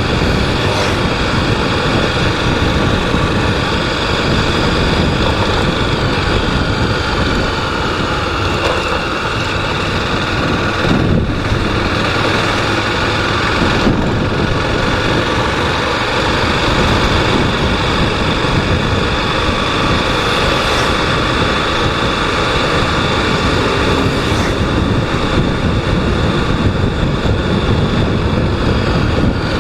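Honda Twister 250 motorcycle's single-cylinder engine running steadily while riding, with road and air noise, dipping briefly a couple of times.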